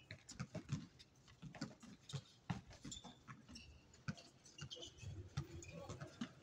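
Basketball game on an outdoor court: irregular thuds and taps of the ball bouncing and players' running footsteps, with faint distant voices.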